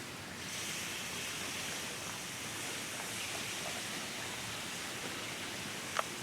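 A small stream of water rushing steadily, a fresh overflow channel from a quickly rising river. The rushing grows louder about half a second in, and there is a single short click near the end.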